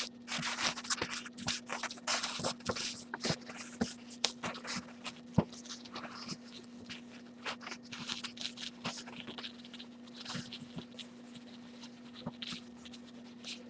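A printed paper sheet being handled and moved, giving irregular rustles, light scrapes and small clicks, with one sharper click about five and a half seconds in. A steady low hum runs underneath.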